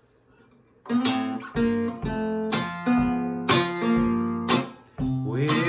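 Orpheum acoustic archtop guitar played with a glass slide, picking a slow gospel tune: a string of plucked notes and chords starting about a second in, with a slide gliding up into a note near the end.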